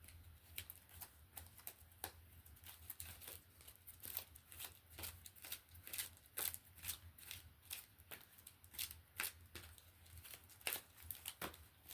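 Oracle cards being shuffled by hand: a quick, irregular run of light flicks and clicks.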